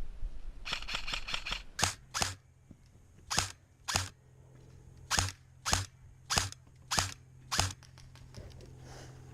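Airsoft electric gun firing on semi-auto: a quick string of about seven shots a second in, then nine separate single shots about half a second apart.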